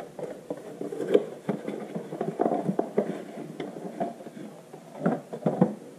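A small cardboard reel box being opened and its paper packing handled: irregular rustling and scraping with a few sharper knocks, the loudest about a second in and again near the end.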